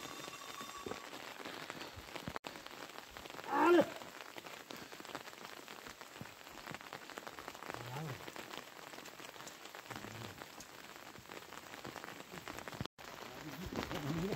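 Steady rain pattering on wet ground and vegetation, with one short, rising call about three and a half seconds in, the loudest moment.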